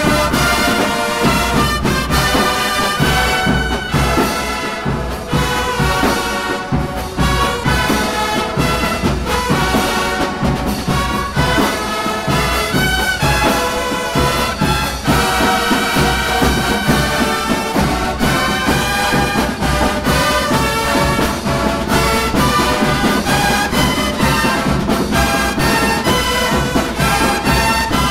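Drum and bugle corps performing: a brass bugle line plays a full, loud tune over the corps' drums.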